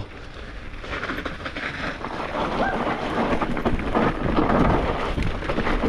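Electric mountain bike rolling down a steep, rough trail: a continuous rumble and clatter of tyres over dirt and roots and the bike rattling, building up over the first second or so.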